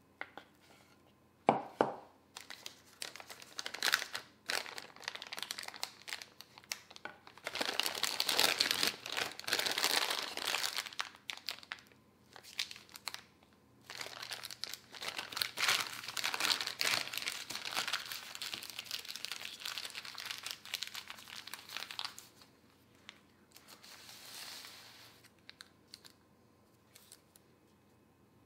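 Disposable plastic piping bag crinkling and rustling in long bursts as it is filled with white royal icing and squeezed, with a couple of sharp knocks in the first few seconds; quieter handling near the end as the icing is piped.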